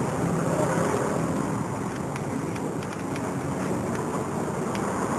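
Steady low background rumble with a few faint light clicks about two seconds in.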